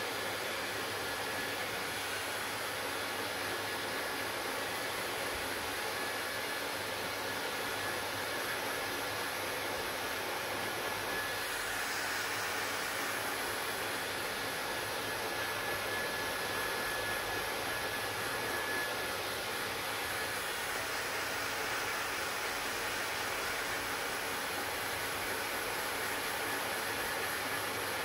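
Handheld hair dryer running steadily, blowing a rush of air with a faint high whine that grows a little stronger midway.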